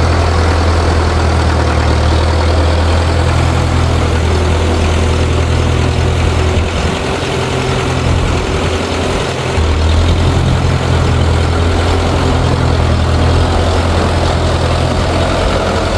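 Four-cylinder diesel engine of a 1960 International B275 tractor running steadily under light load, with its loader holding a hanging engine hoist. The engine note weakens for a few seconds in the middle, then picks back up.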